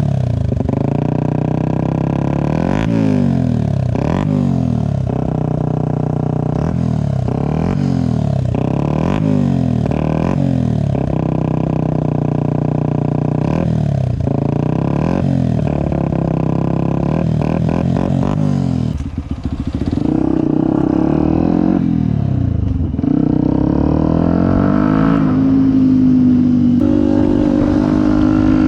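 Yamaha WR 125X single-cylinder four-stroke engine through a BlackWidow aftermarket exhaust, revved in quick blips about once a second. Near the end it is held at a steadier, higher speed.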